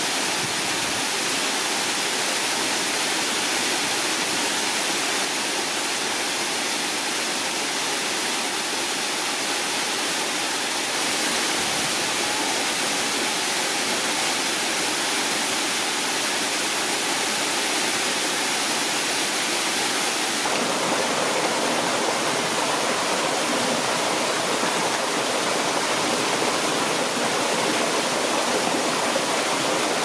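Small forest waterfall pouring into a plunge pool: a steady rush of falling water. About two-thirds through the tone changes to a shallow stream running down a rocky cascade.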